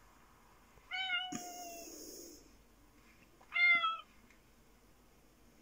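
A cat meowing twice: a longer meow about a second in, and a shorter one at about three and a half seconds. A short hiss of noise follows just after the first meow.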